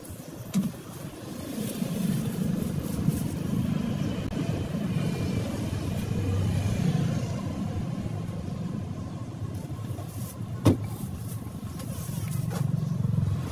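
Low rumble of road traffic passing, swelling and fading, with one sharp click near the end.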